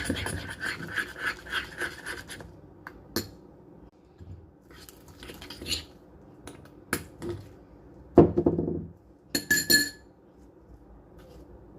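Scraping and clinking of a utensil against a dish as toothpaste slime is worked: a dense run of scratchy scraping for the first couple of seconds, then scattered clicks and taps, with the loudest knock a little after eight seconds.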